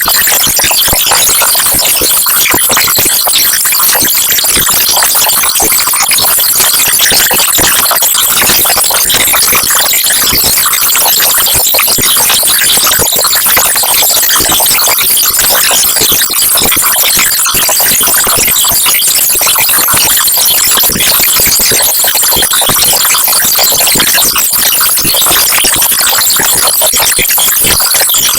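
Loud, steady, harsh crackling static: a dense hiss full of rapid, irregular clicks, strongest in the high treble.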